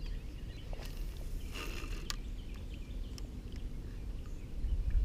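Outdoor background with a steady low rumble, likely wind on the microphone, that swells near the end. A few small clicks and a brief rustle about a second and a half in, as of hands handling fishing line.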